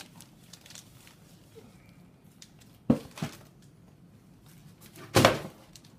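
Gift packages and a cardboard box being handled: faint rustling, a sharp knock about three seconds in followed quickly by a smaller one, then a louder rustle and bump near the end.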